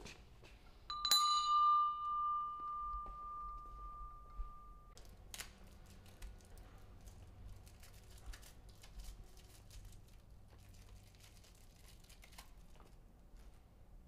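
A metal object struck once, ringing like a bell with one clear tone that dies away over about four seconds. A sharper click follows, then a scatter of faint, irregular clicks and ticks.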